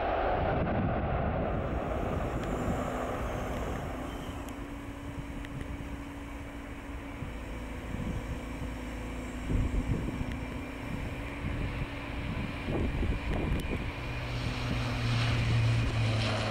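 Boeing 777 freighter's GE90 jet engines rumbling during the landing rollout, fading over the first few seconds, with wind buffeting the microphone.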